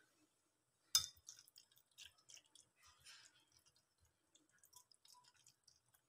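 A metal spoon stirring a wet chicken masala mixture in a glass bowl: one sharp clink about a second in, then faint scattered wet squishes and small clicks.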